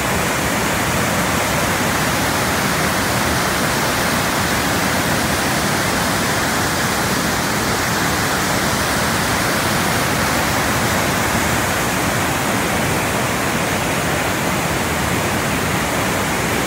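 River in spate after three days of heavy rain: muddy floodwater rushing and churning over rocks and a low weir in a steady, unbroken rush.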